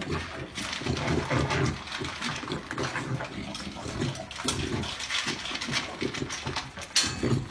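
Puppy eating dry kibble from a metal bowl: rapid, irregular crunching and clicking as it chews and noses through the food.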